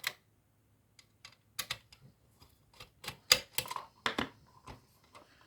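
Irregular light clicks and taps from the plastic and metal parts of an opened digital TV receiver being handled, about a dozen in all, the loudest a little past three seconds in.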